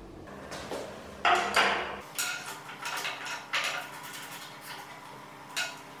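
Several sharp metallic clinks and knocks of steel parts and tools being handled on a steel welding cart table.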